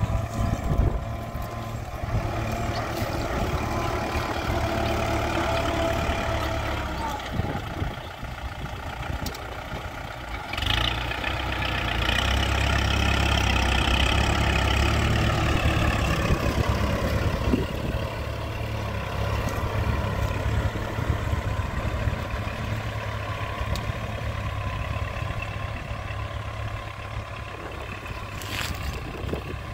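Kubota MU4501 tractor's four-cylinder diesel engine running steadily under load while pulling a tine cultivator through the soil. It grows louder for a few seconds around the middle as the tractor passes close by, and the engine note dips slightly as it goes past.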